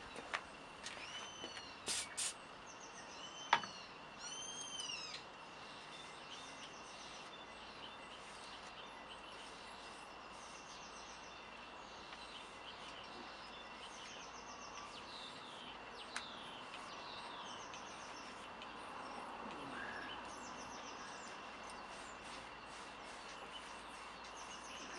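Birds singing: repeated arching chirps and short rapid trills over a steady high tone. A few sharp clicks come in the first few seconds, the loudest about three and a half seconds in.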